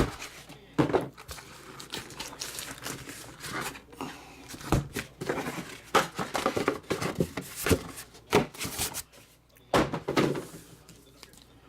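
Packaging being handled as a comic book box is opened: plastic crinkling and rustling, with irregular light knocks and thumps.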